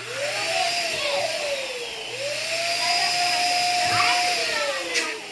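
Air escaping from an inflated latex balloon through its stretched neck: a loud squeal over a rushing hiss. It wavers in pitch, holds steady, then falls in pitch near the end.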